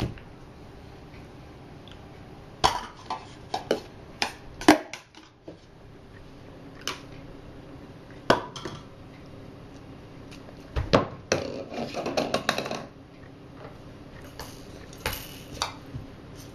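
Toys knocking and clattering as a baby handles them: irregular sharp clicks and knocks, some coming in quick clusters.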